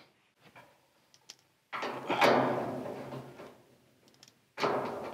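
Steel shed door panel rattling and booming as it is moved on its frame, twice: a sudden sheet-metal rumble nearly two seconds in that dies away over a second or two, and another near the end. Faint light ticks come before them.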